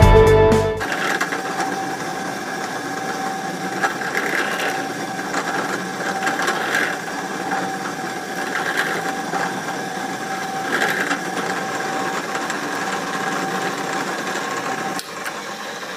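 Bench drill press motor running steadily while its bit drills through an aluminium strip and the 3D-printed plastic part beneath it. The cutting gets louder for a moment about every two seconds.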